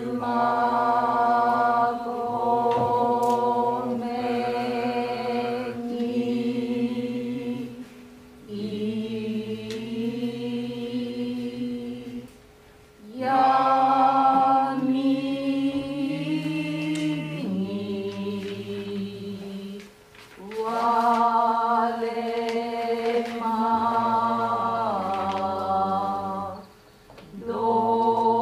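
Several voices intoning a waka poem in unison in the Reizei-school hikō style. Each syllable is drawn out into long held notes that step slowly up or down in pitch, in phrases broken by brief pauses for breath.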